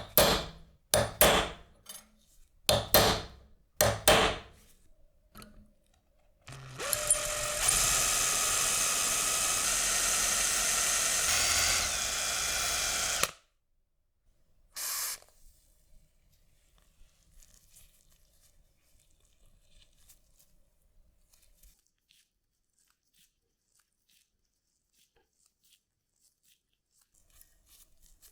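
A power tool's motor: several short bursts, then it runs steadily for about seven seconds before cutting off suddenly, with one more short burst soon after.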